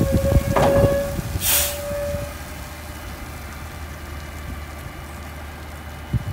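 Garbage truck with a Curotto Can arm emptying a cart: knocks and clatter, then a steady hydraulic whine to about two seconds in. A short, sharp hiss of air comes about one and a half seconds in. After that the diesel engine idles steadily, with one thump near the end.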